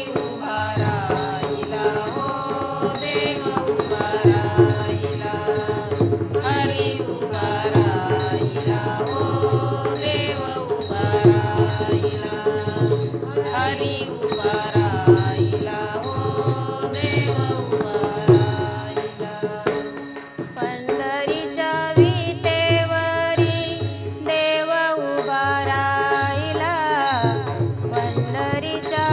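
Marathi devotional abhang: a harmonium playing the tune under women's group singing, with a dholki hand drum keeping a steady rhythm.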